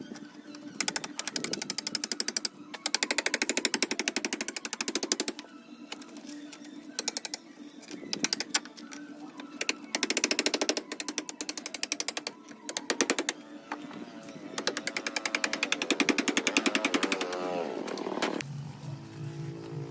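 A rapid-striking power tool running in several bursts of one to three seconds, hammering fast and evenly, typical of rust and metalwork on an old car body.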